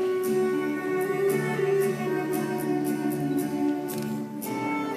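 Instrumental music playing: a held melody over a steady beat of sharp note attacks.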